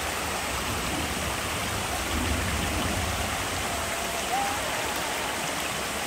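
Shallow mountain stream running over a rocky bed: a steady, even rush of flowing water.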